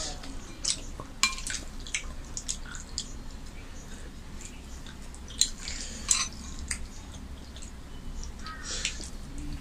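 Scattered wet clicks and smacks of rice and chicken curry being mixed and eaten by hand, with a few clinks of a spoon against a curry bowl.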